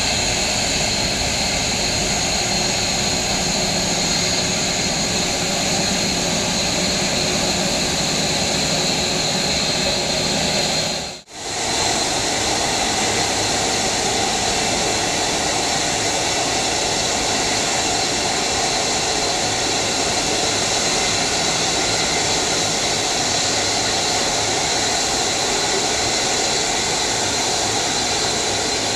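Airbus A340-300's four CFM56 turbofans at taxi power: a steady jet hiss with a high whine. The sound drops out briefly about a third of the way through, then resumes.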